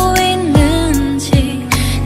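Pop music with a steady beat and a gliding melodic line.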